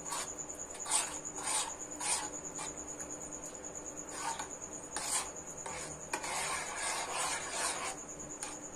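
Metal spoon stirring thick kheer in a metal pan, scraping and clinking against the pan in short, irregular strokes, with a longer run of scraping about six seconds in.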